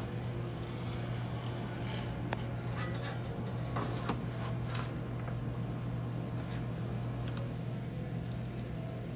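Snap-off utility knife blade drawn down along a metal straightedge, double-cutting through two overlapping layers of vinyl wallpaper, heard as a few faint scrapes and clicks. A steady low hum runs underneath and is the loudest sound.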